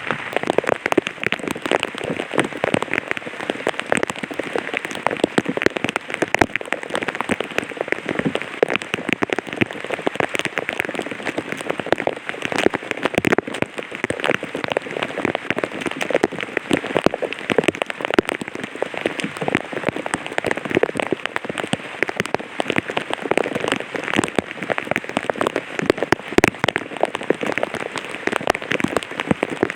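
Light rain falling on an umbrella: a dense, irregular patter of many small drops striking the canopy, even in strength.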